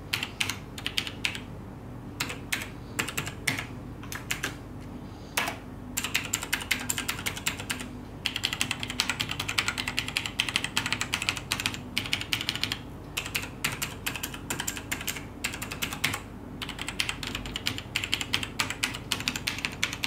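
Fast typing on mechanical keyboards, a side-by-side comparison of clicky, tactile Razer Green switches and linear, non-clicky Cherry MX Black switches. The typing comes in several stretches separated by brief pauses, some sounding brighter and clickier than others.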